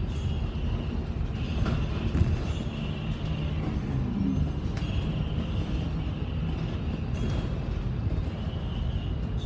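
Cabin sound of a MAN ND323F double-decker bus on the move: a steady low engine and road rumble, with a few short knocks and rattles.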